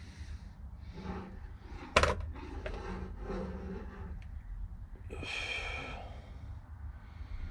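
Workshop handling sounds: a sharp knock about two seconds in and a short scrape with a faint squeal a little past the middle, over a low rumble.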